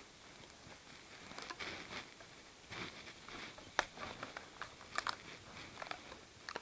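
Faint rustling and light taps of hands handling a rubber band ball and loose rubber bands, with a few short sharp clicks scattered through.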